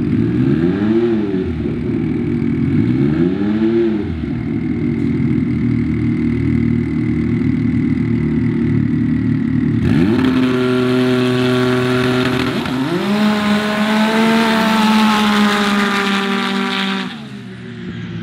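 Turbocharged Can-Am Maverick X3 drag side-by-side revving in three quick blips at the start line, then held at a steady high rev. About ten seconds in it launches and accelerates hard with a climbing pitch that dips once briefly and climbs again, then fades as the car goes down the strip near the end.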